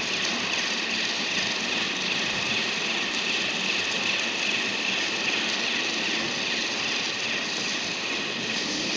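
Steady, unchanging workshop machinery noise, an even hiss with a hum beneath it.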